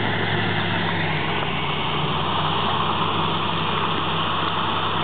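Bulldozer's diesel engine running steadily with a constant low hum.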